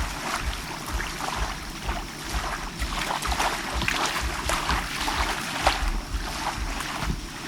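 Bay water lapping and splashing in small, irregular waves, with a low, uneven rumble underneath.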